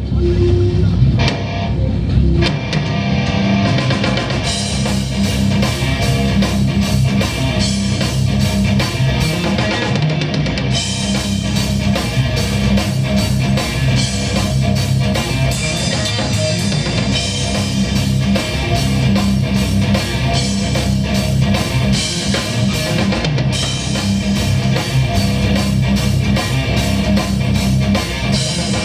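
Live heavy rock band playing: electric guitars, bass and drum kit, with the full drums and cymbals kicking in about four seconds in.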